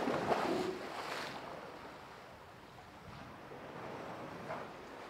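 A Steller sea lion splashes into a pool, followed by the steady wash of water as it swims away. The splash is loudest in the first second.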